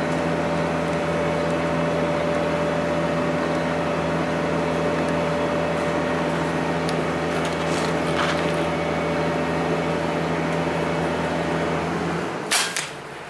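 Steady mechanical hum of a running motor or fan, with several steady tones, that stops about twelve seconds in. About half a second later comes a single sharp crack from a PCP air rifle shot, with the pellet striking a collared dove.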